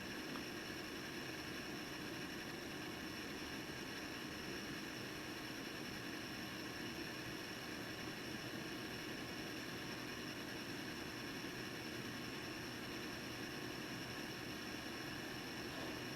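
Steady faint hiss and hum with a few thin, high, steady whining tones, unchanging throughout: room tone while a laptop boots quietly.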